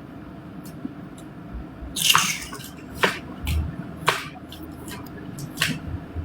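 A series of short, sharp hissing and clicking sounds at irregular intervals over a low steady background; the loudest is a brief hiss about two seconds in.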